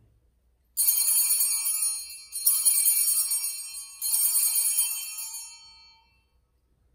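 Altar bells (Sanctus bells) rung three times, each a bright jingling shake that dies away, marking the elevation of the chalice at the consecration.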